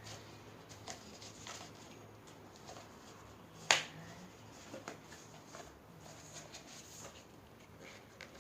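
Light clicks and taps from handling small objects, with one sharp snap a little under four seconds in.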